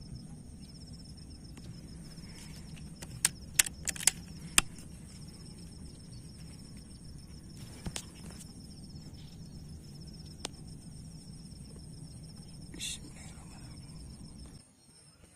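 Insects trilling steadily at two high pitches over a low rumble, broken by a quick run of four sharp, loud clicks about three to four and a half seconds in and a couple of fainter clicks later. The sound drops off abruptly near the end.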